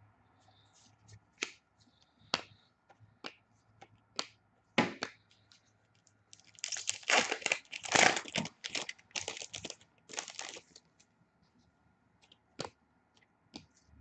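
A foil pack of Upper Deck hockey cards being torn open, its wrapper tearing and crinkling for about four seconds in the middle, with scattered light clicks and taps before and after.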